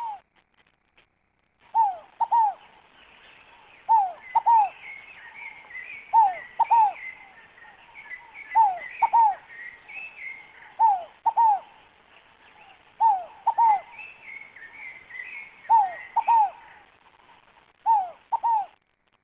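Scaled dove (rolinha fogo-apagou) singing its two-note coo, repeated eight times at an even pace of about one phrase every two seconds. Each note falls slightly in pitch. Fainter high chirping from other small birds runs behind it.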